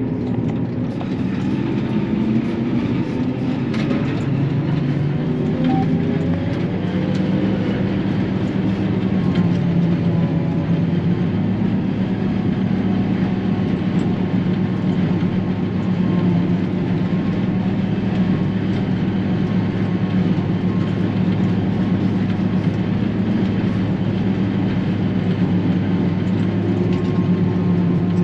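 Self-propelled forage harvester running steadily while chopping corn and blowing silage into a truck: a continuous low mechanical drone.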